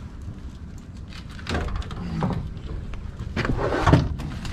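A landing net holding a large fish is hauled over the side of an aluminium boat. There are scuffling and knocking sounds against the hull over a steady low rumble, and the loudest knock comes about four seconds in.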